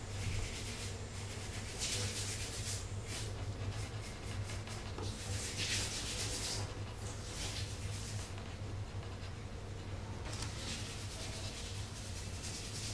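Pencil scratching on paper in strokes of shading, the longest bursts about halfway through and near the end, over a steady low hum.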